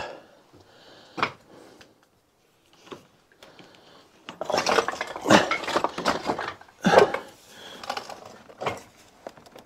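Hard objects clinking and scraping against one another, metal-sounding, with a few separate sharp knocks and a longer stretch of clattering in the middle.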